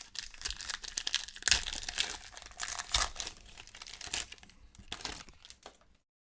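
Sports card pack's plastic wrapper crinkling and tearing as it is opened, a dense crackle with sharp peaks that stops abruptly near the end.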